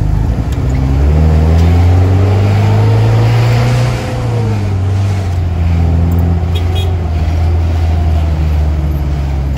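Mitsubishi Colt L300 minibus engine heard from inside the cabin, revving up with its pitch rising for a few seconds, then easing off about four seconds in and pulling steadily again.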